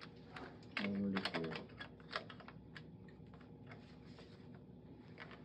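A string of small, irregular plastic clicks and taps from hands handling the anaesthesia machine's breathing-circuit hoses and connectors, thinning out after the first couple of seconds.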